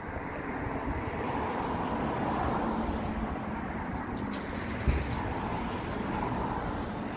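Street traffic: a car driving past, its noise swelling over the first couple of seconds and then slowly fading, with a single short thump about five seconds in.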